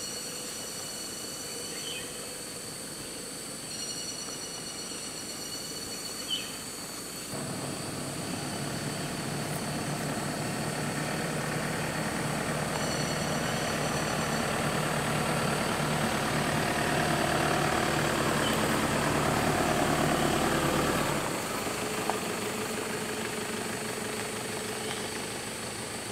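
A motor vehicle's engine running steadily close by. It comes in suddenly about seven seconds in, grows louder, then drops back sharply about 21 seconds in to a lower, quieter run.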